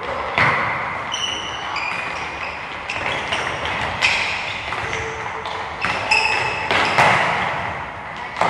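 Soccer balls being kicked and bouncing in an echoing hall: several sharp thuds a second or more apart, with short high-pitched squeaks in between.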